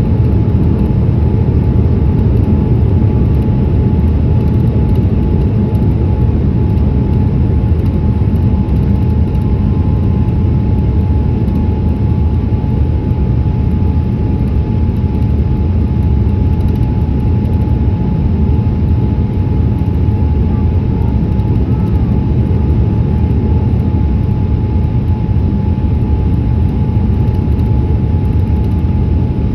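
Boeing 787-8 airliner in flight on its landing approach, heard as a steady low rumble of engines and airflow with a faint constant whine.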